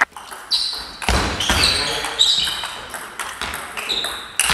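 Table tennis rally: the ball clicks off the bats and the table about twice a second, each sharp tock ringing briefly and echoing in a large sports hall.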